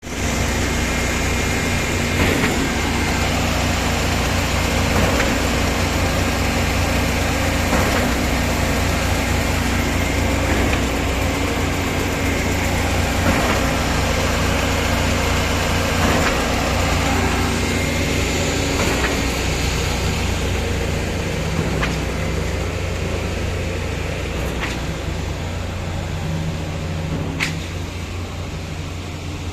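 An engine running steadily with a low hum, and sharp knocks every few seconds over it, easing off slightly near the end.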